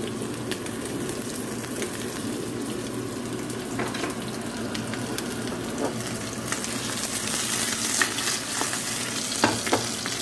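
Butterflied marinated milkfish (bangus) sizzling in hot oil in a nonstick frying pan, a steady frying hiss. A few short clicks and taps break through it, the loudest near the end.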